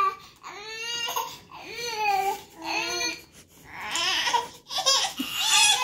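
Baby crying and fussing in a string of short, high-pitched wails with brief breaks between them, a protest as the twin grabs at its pacifier.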